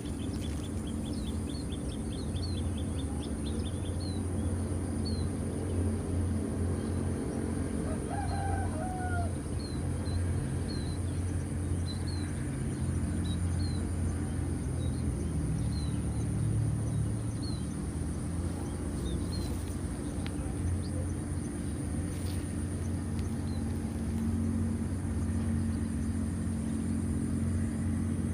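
A rooster crows once about eight seconds in, over a steady low hum, with a small bird chirping in short repeated notes and a steady high buzz from insects.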